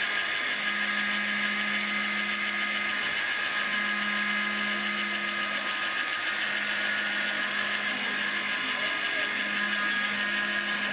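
Proxxon MF70 mini mill, converted to CNC, isolation-milling a circuit board: the spindle runs with a steady high whine, while a lower hum from the axis drives starts and stops every second or two as the table moves along the tracks.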